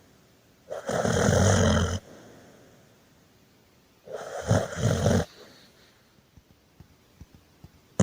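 Snoring: two loud snores about three seconds apart, the first a steady one lasting about a second, the second broken into a few short pulses.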